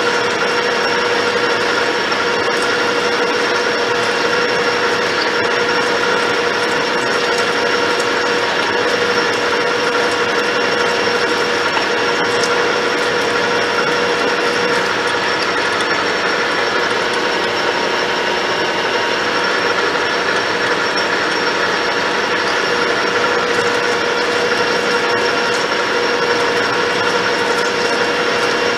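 Lathe drilling a 7/16-inch hole in a spinning metal part: the spindle and drill cutting steadily under flood coolant, a constant machine noise with a steady whine.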